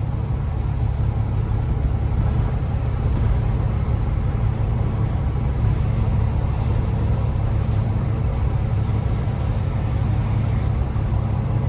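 Tractor-trailer driving: a steady, unbroken low rumble of engine and road noise.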